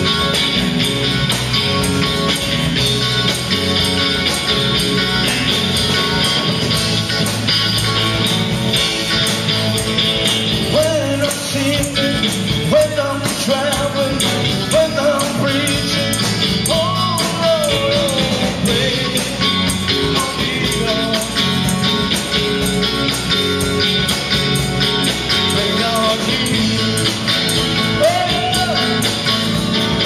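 Live rock-style band music led by a Telecaster-style electric guitar, with a man's singing coming in about ten seconds in.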